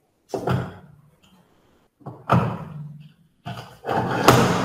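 Veritas small plow plane cutting a drawer-bottom groove along a board, three push strokes. Each stroke is a short scraping rush with a dull thump through the bench. The third stroke is the longest and loudest, with a sharp click near its peak.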